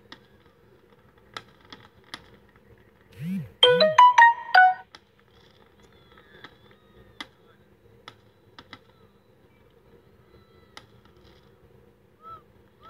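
A short electronic jingle like a phone ringtone, about three and a half seconds in: two low swooping tones, then a quick run of about eight bright beeping notes lasting just over a second. Otherwise faint scattered pops from the fireworks display.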